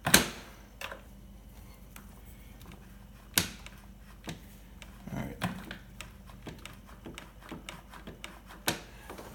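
Hard plastic clicks and knocks of a Samsung freezer door handle and its spring-loaded pusher pieces being pressed onto their mounts. There is a loud clack at the very start, a sharp snap about three and a half seconds in, a duller knock a little after five seconds and another snap near the end, with lighter clicks between.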